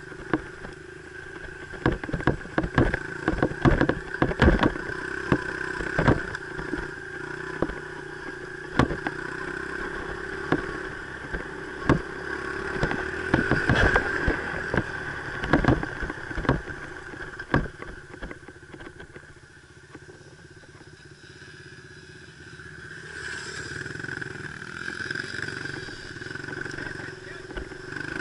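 Dirt bike engine running at a fairly steady pitch while riding a trail, with frequent knocks and rattles through the first two-thirds. It drops away for a few seconds about two-thirds through, then picks up again.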